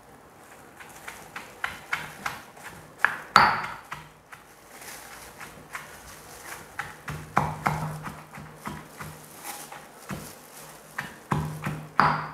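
Granite pestle pounding boiled chillies, shallots and herbs in a granite mortar: a run of uneven knocks, roughly two a second, the hardest about three seconds in.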